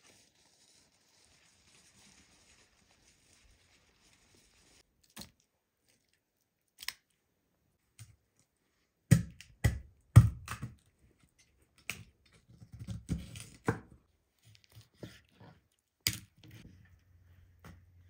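A knife cutting up a raw chicken: scattered sharp clicks, then a run of heavy chopping knocks about halfway through, followed by softer cuts and knocks. A faint steady hiss comes before the cutting starts.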